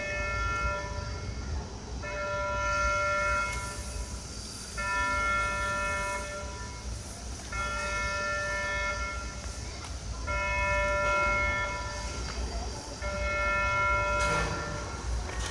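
Electronic warning tone of a railway turntable in motion: one steady pitched tone about a second and a half long, repeating evenly every two to three seconds, about six times. A low steady rumble runs underneath.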